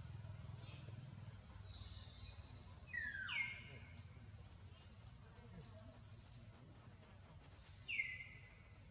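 Birds calling in the trees: two loud whistled calls that slide down in pitch, about three seconds in and near the end, with a few short sharp chirps between them, over a faint low hum.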